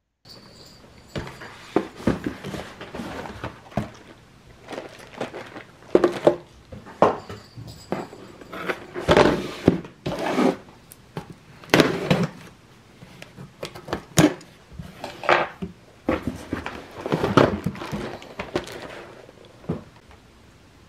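A cardboard delivery box being handled and unpacked: irregular rustles, scrapes and knocks of cardboard and the packages inside, roughly one every second, dying down near the end.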